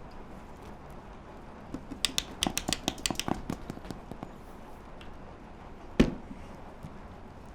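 Hand-made foley effects: a quick run of about a dozen sharp clicks and taps lasting about a second and a half, then a single loud knock about six seconds in.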